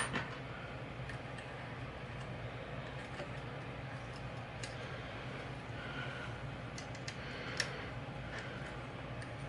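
Scattered faint clicks and taps of small metal parts and a hand tool as a scope bubble level's clamp screw is worked, over a steady low hum; the sharpest click comes near the end.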